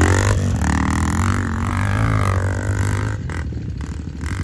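Dirt bike engines: one running steadily close by while another revs up and down, rising and falling in pitch for about three seconds before dropping away, as it climbs a steep dirt hill.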